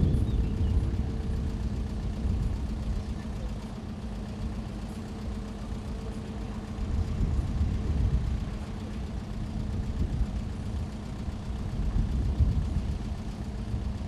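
A steady machine hum, a low drone with a higher tone above it, over a low rumble that swells and fades.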